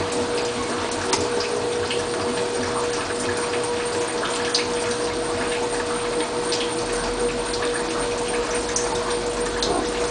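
Bosch washing machine with water rushing through it and a steady humming tone, with small scattered ticks and splashes.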